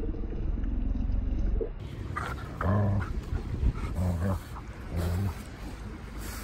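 Belgian Tervuren giving three short, low-pitched vocalizations in the second half, each about a third of a second long. A low rumbling noise fills the first couple of seconds.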